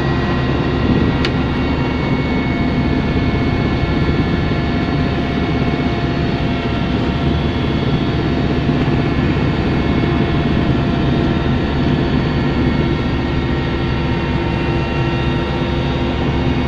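Helicopter in level flight, heard from inside the cabin: a steady engine and rotor drone with several constant tones over an even noise.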